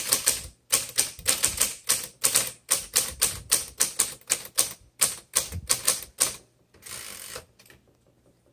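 1958 Royal Aristocrat portable manual typewriter being typed on, keys striking at about four a second for some six seconds, followed by a short rasp near the end.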